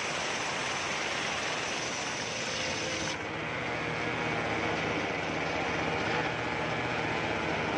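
Homemade table-mounted circular saw ripping coconut-wood planks: the steady, loud noise of the spinning blade cutting through the wood and the machine driving it. About three seconds in the sound changes: the hiss thins and a steadier hum comes through.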